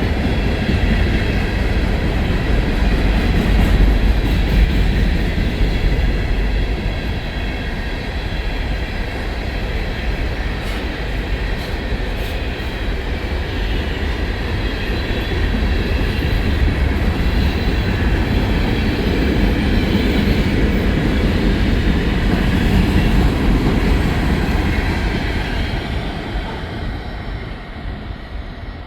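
Coal train cars rolling past on the rails: a steady rumble of wheels on track with a faint high wheel squeal, fading over the last few seconds.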